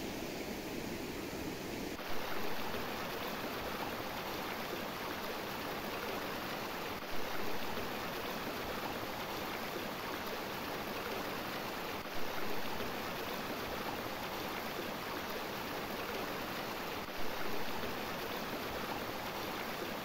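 Water of a shallow rocky stream running, a steady rushing with a short swell about every five seconds.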